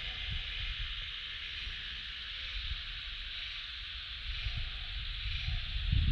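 Cicadas singing in a constant, steady, high-pitched drone, with an uneven low rumble underneath that grows stronger near the end.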